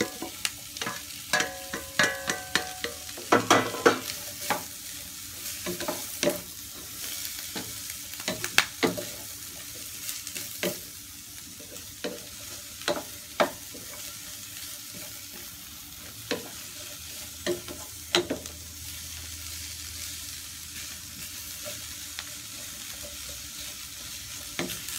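Green beans and carrots stir-frying in a stainless-steel frying pan, with a steady sizzle and a wooden spatula knocking and scraping against the pan. In the first few seconds the beans are tipped from a ceramic bowl into the pan with a burst of clattering.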